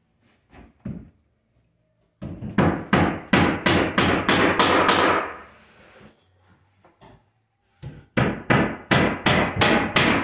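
Hammer driving washer-headed nails through a sheet of mass loaded vinyl into wooden wall studs: quick, even blows, about three a second. They come in two runs, starting about two seconds in and again about eight seconds in, with a quiet pause between.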